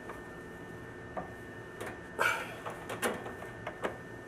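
Copper pipe and fittings being handled and pushed together: about six short knocks and clinks, with a brief scrape about halfway through, which is the loudest.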